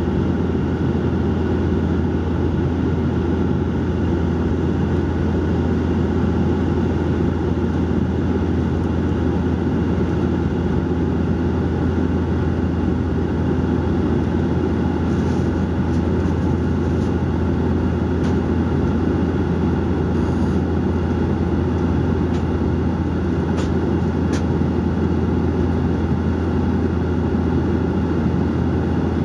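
Steady cabin drone of a Bombardier Dash 8-400 turboprop airliner in cruise: a strong, constant low propeller hum under a broad rush of engine and airflow noise.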